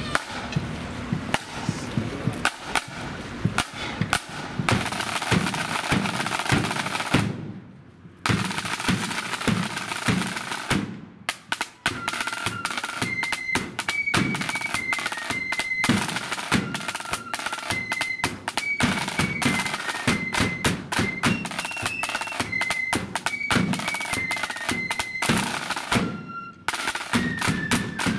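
A blood-and-thunder marching flute band playing: snare side drums rattle and beat a fast march over a bass drum, stopping briefly three times. About halfway through, the flutes come in with a melody over the drums.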